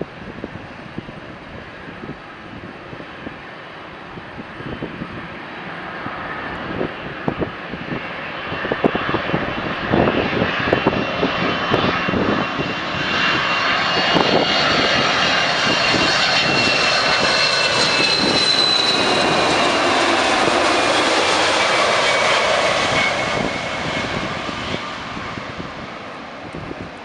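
Boeing 767-200ER's twin turbofan jet engines on landing approach, passing low overhead. The jet noise builds over several seconds and holds loud, with a high whine that slowly falls in pitch as the plane goes by, then fades near the end.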